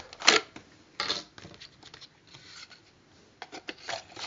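Handling noises: a sharp click about a third of a second in, then scattered clicks and soft rustling as things are handled.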